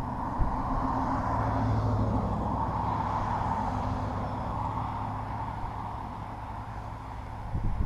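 Steady noise of a passing motor vehicle, swelling over the first couple of seconds and slowly easing off.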